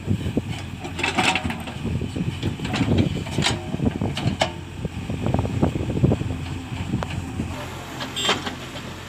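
Diesel engine of heavy earthmoving machinery running steadily, with irregular short clanks and rattles over it.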